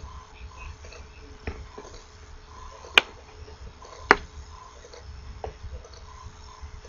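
Diagonal cutters snipping the excess component leads off a printed circuit board: two sharp snaps about a second apart near the middle, with a few fainter clicks before and after, over the rustle of the board being handled.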